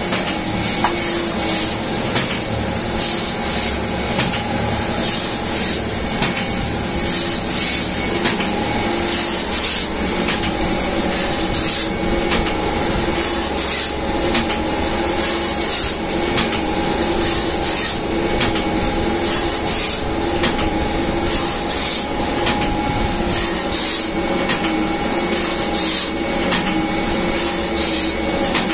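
Sakurai SC-72A screen printing press running: a steady mechanical hum with a short hiss that repeats about once a second as the machine cycles sheets through.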